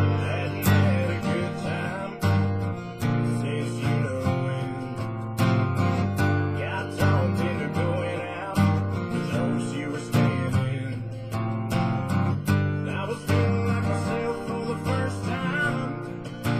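Country music with a steady beat: strummed acoustic guitar over a strong bass line.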